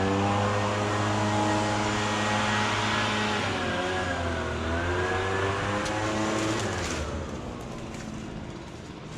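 An engine running. Its pitch climbs as it comes up to speed, holds steady with a small wavering about four seconds in, then dies away over the last couple of seconds.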